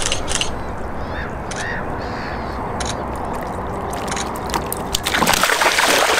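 Heavy splashing in water starting about five seconds in, as a large grass carp thrashes at the lake's edge, over a steady low rumble. A few short bird calls about a second in.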